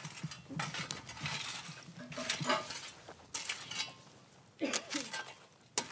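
A long-handled tool raking and scraping through the glowing embers of a fire pit, in several separate strokes with light metallic clinks and a sharp click near the end.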